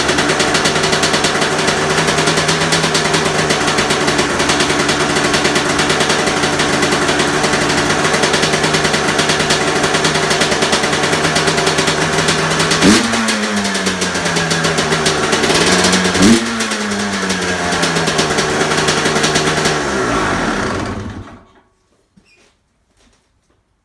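2002 Honda CR250's single-cylinder two-stroke engine with its stock exhaust pipe, idling steadily. About halfway through it is blipped twice, a quick sharp rev each time falling back to idle, and near the end it shuts off.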